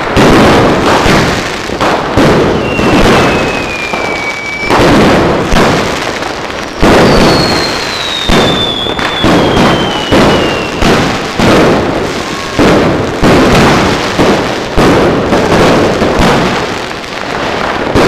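Fireworks fired close by: aerial shells launching and bursting overhead in quick succession, a loud bang about every second or so. Two long whistles falling in pitch run through the bangs, the second about seven seconds in.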